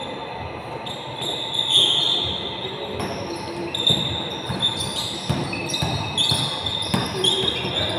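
A basketball bouncing with several irregular thuds, and sneakers squeaking briefly and repeatedly on the court floor, echoing in a large gym hall.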